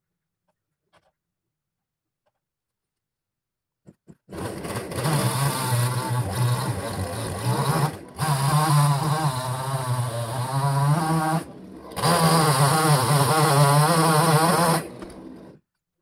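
Two-stroke chainsaw running at high revs, its pitch wavering, heard through a closed window. It starts about four seconds in, drops back briefly twice, and stops shortly before the end.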